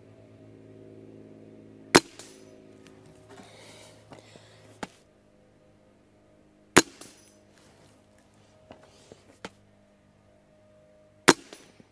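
Three shots from a .22 Gamo Hunter Extreme Pro break-barrel air rifle, each a single sharp crack, about four and a half seconds apart. Fainter handling noises and small clicks come between the shots.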